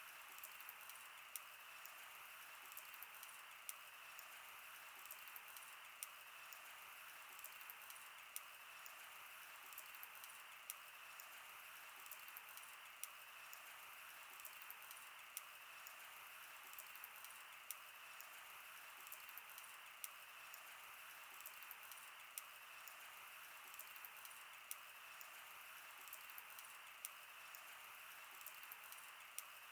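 Wood bonfire crackling: frequent irregular sharp pops and snaps over a soft steady hiss.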